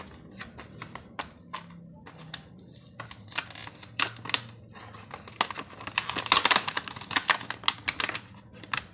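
A doll set's clear plastic packaging crinkling and clicking as hands open it. The sharp clicks and crackles come in an irregular run that grows dense about six seconds in.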